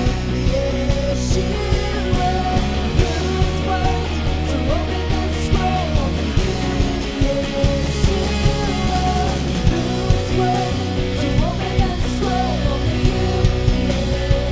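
Live worship band playing a song, with a steady drum beat under a wavering lead melody line.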